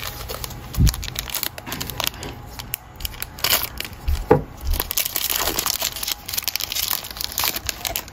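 A 2021 Panini Mosaic foil card pack crinkling as it is handled and torn open, then the cards being slid out, in a run of short crackles that is busiest in the middle. A low thump about a second in.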